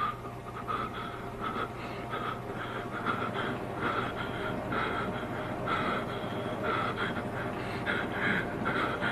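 A person panting heavily, short breaths about twice a second, over a steady low hum.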